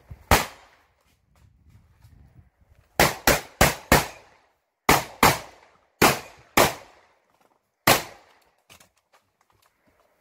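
About ten gunshots from a competitor's shouldered long gun: a single shot, a quick string of four about three seconds in, two pairs, then a last shot near the end. Each shot has a short echoing tail.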